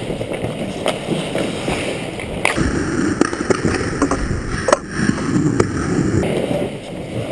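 Ice hockey skates scraping and carving across rink ice, with a few sharp clacks from sticks and puck.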